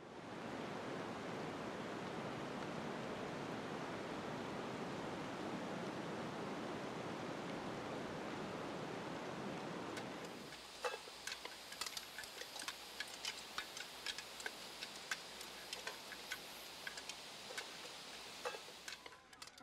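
A steady rushing noise for about ten seconds, which then drops away; after that come irregular sharp clicks and light clinks, some with a faint ring.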